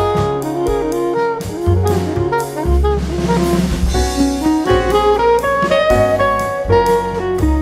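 Background jazz music with saxophone, bass and drums.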